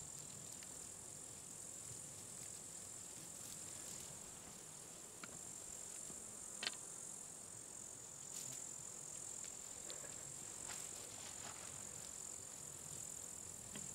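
Steady, high-pitched chorus of insects such as crickets, with one short click about six and a half seconds in.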